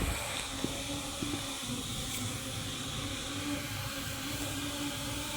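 CNC router with a rotary (4th) axis running: a steady low tone from the spindle over an even hiss, with a few faint clicks.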